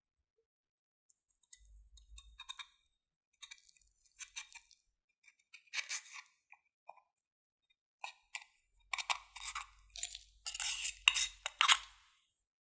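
Glossy slime being stirred and squished by hand, giving irregular wet clicks and crackles. They are sparse at first and become busy and loudest for the last few seconds.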